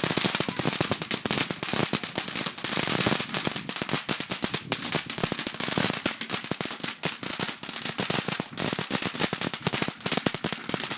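Firework going off in a rapid, continuous run of sharp crackling bangs, many a second.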